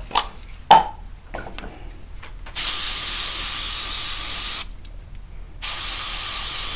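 Aerosol can of Rem Oil gun lubricant spraying in two long steady hisses, each about two seconds, with a short pause between them. A few light clicks of metal parts being handled come before the spraying.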